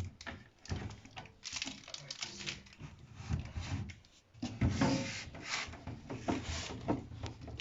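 Irregular rubbing, scraping and light knocking of things being handled, with a short pause about four seconds in before the handling picks up again.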